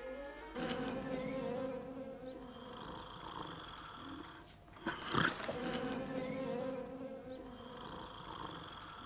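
A man snoring while dozing: two long buzzy snores, each trailing off into a thin whistle, with a short loud sound between them about five seconds in.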